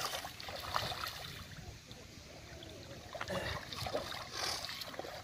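Shallow water splashing and sloshing irregularly around a wading man's legs and hands as he handles a cast net's line.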